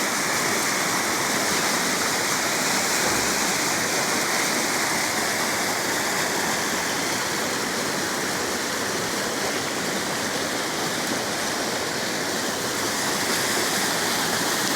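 Rain falling steadily: a dense, even hiss that does not let up.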